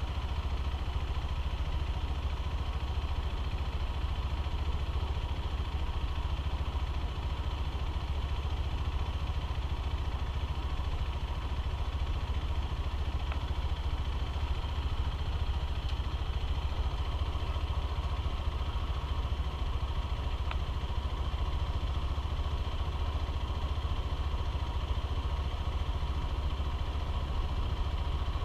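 Honda CBF125R's single-cylinder engine running steadily under a continuous low rumble.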